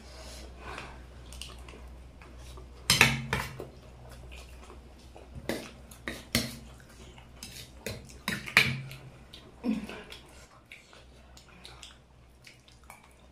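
Spoons clinking and scraping against plates while eating, in scattered sharp clinks, a few louder ones about three seconds in and again between six and nine seconds. A faint, low, steady hum runs underneath.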